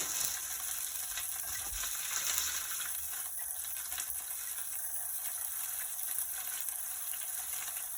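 Whole red snapper frying in hot oil in a pot: a steady, even sizzle, with a few faint clicks and scrapes.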